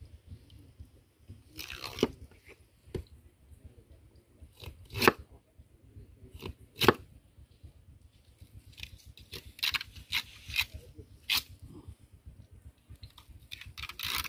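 A knife slicing through raw tuna, cutting flesh away from the bone in a series of separate, irregular cuts and scrapes. The sharpest come about 5 and 7 seconds in, with a quicker run of them after about 9 seconds.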